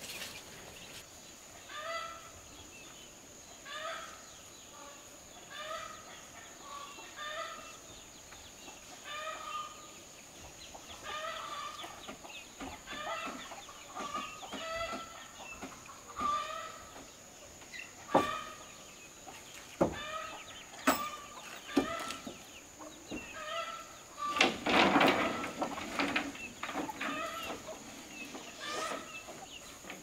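Chickens clucking: short calls repeating every second or two, with a louder, noisier stretch about three-quarters of the way through. A faint steady high whine runs underneath.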